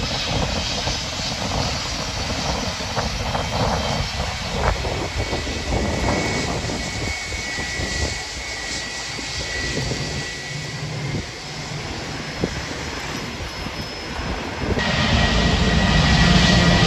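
Airbus A320 jet engines running with a steady roar and a thin high whine. The sound gets abruptly louder, the whine stronger, near the end.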